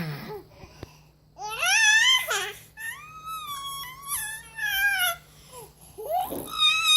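A baby's long, high-pitched squealing cries, three drawn-out calls in a row with pitch sliding up and down. This is a playful vocal impression of a zombie, not distress.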